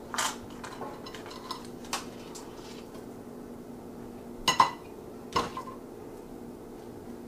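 Cutlery clinking against kitchen dishes and a metal pan as a knife and fork are used to butter a baked potato. It is a few light taps early on, then two louder metallic clanks about four and a half and five and a half seconds in that ring briefly. A steady low hum runs underneath.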